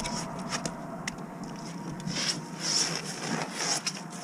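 Scraping, rubbing and a few sharp clicks from a struggling hooked fish as it is held and handled, with swells of splashing-like hiss.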